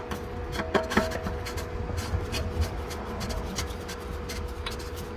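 Oil filter housing cap being screwed back on by hand, with gloved hands rubbing against it and small clicks and knocks throughout. A brief metallic clink comes about a second in, over a steady background hum.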